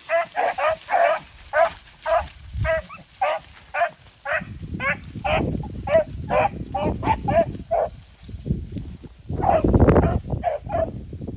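Beagles baying in a steady string of short cries, about two or three a second, as the pack runs a freshly jumped rabbit. A low rumbling noise comes in partway through and is loudest near the end.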